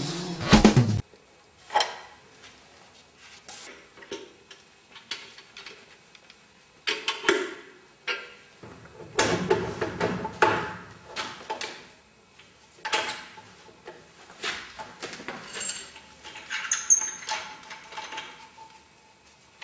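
Scattered clinks, knocks and clatter of hard objects being handled, in irregular clusters with quiet gaps between.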